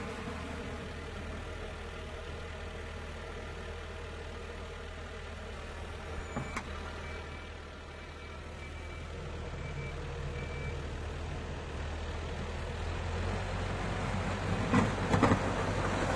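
Tractor engine idling with a steady low hum, a sharp click about six and a half seconds in, then getting gradually louder through the second half, with a couple of knocks near the end.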